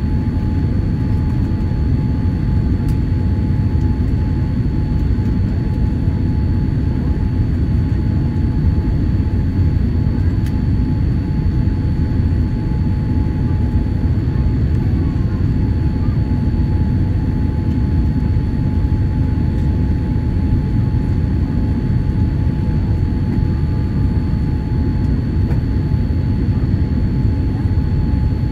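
Steady low rumble of engine and airflow noise inside the cabin of a Boeing 787-8 Dreamliner on final approach, with faint steady tones above it.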